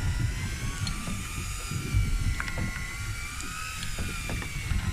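Boat's outboard motor running, a whine that slowly wavers in pitch over a low rumble, with a few faint clicks.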